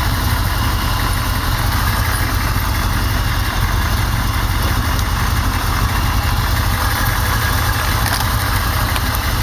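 A 1989 Pontiac Firebird Trans Am GTA's V8 engine idling steadily, its spark plug wires arcing: the owner takes this as a sign that the wires are worn and the car is due for a tune-up.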